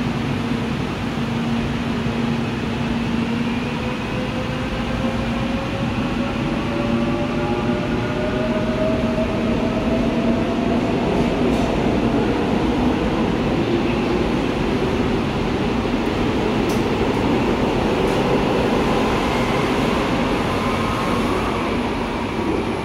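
Seoul Line 4 electric subway train pulling out of the station. Its traction motors give a whine of several tones rising in pitch as it gathers speed, over the rumble of the cars running past. The sound eases near the end as the last car leaves.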